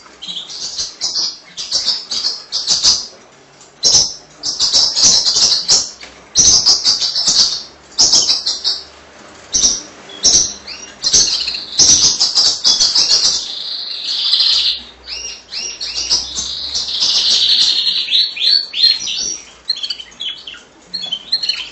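Female Border canary singing: phrases of rapid high chirps and trills, with a long, fast, even trill around the middle and another a few seconds later.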